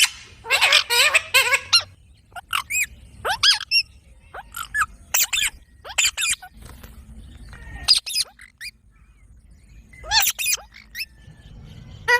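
A pet parrot calling: a run of shrill screeches in the first two seconds, then short, sharp squawks and chirps every second or so, with a quieter spell a little past the middle.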